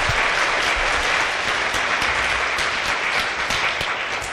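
Audience applauding, a dense patter of many hands clapping that thins and dies away near the end.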